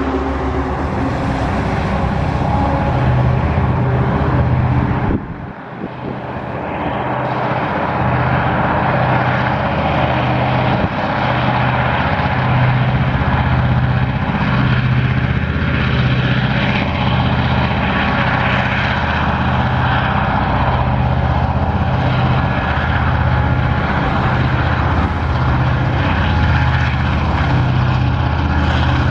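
Two Tasrail diesel-electric locomotives hauling a loaded coal train, their engines running hard under load with a deep, even throbbing beat. The sound briefly drops about five seconds in, then comes back.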